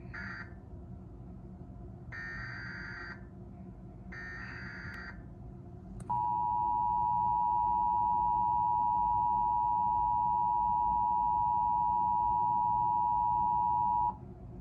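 Emergency Alert System tones: three short squawks of digital SAME header data about two seconds apart, then, about six seconds in, the EAS two-tone attention signal, held steady and loud for about eight seconds before it cuts off.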